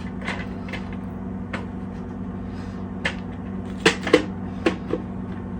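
Hard plastic clicks and knocks as the dust bin and cyclone of a Hoover Elite Rewind bagless upright vacuum are taken apart and handled. There are scattered single knocks, then a busier cluster about four seconds in, over a steady low hum.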